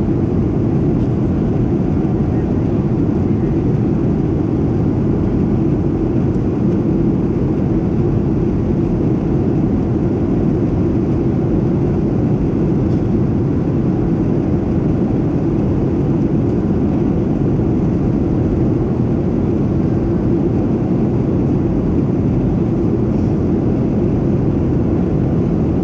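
Steady, deep cabin noise of a Boeing 737-700 in flight, heard from a window seat over the wing: the drone of its CFM56-7B engines mixed with the rush of air past the fuselage, unchanging throughout.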